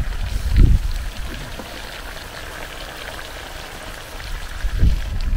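Potatoes and chicken crackling and sizzling in hot oil with a little water in a pot over a fire, a steady pattering sizzle. Two low thumps come through, one about half a second in and one near the end.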